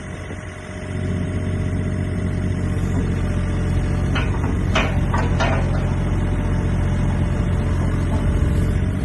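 Small diesel engine of a Kobelco SK28SR mini excavator running steadily, getting louder about a second in. A few short knocks come around the middle.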